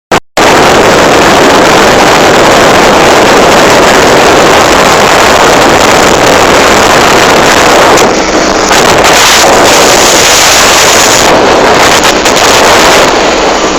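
Speedboat under way, its engine running under loud, distorted wind rushing over the phone's microphone; the sound cuts in abruptly just after a click at the start.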